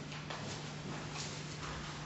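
Quiet room tone: a steady low hum under faint hiss, with a few soft, faint taps and rustles.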